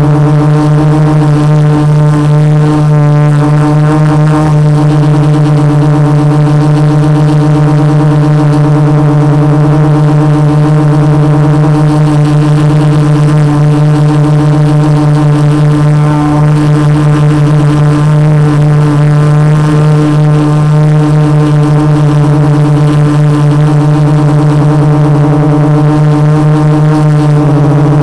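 Quadcopter's brushless motors (Multistar 2212 920 kV) and 12-inch carbon-fibre propellers humming steadily at hover, picked up close by the onboard camera. The steady tone wavers only slightly in pitch.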